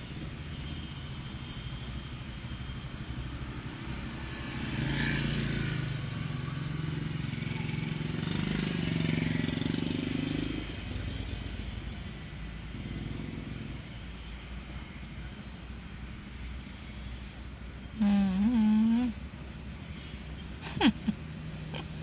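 Road traffic heard from inside a car: a steady low rumble, with a vehicle passing and growing louder from about four seconds in, fading again after about eleven seconds. A short voice and a couple of sharp clicks come near the end.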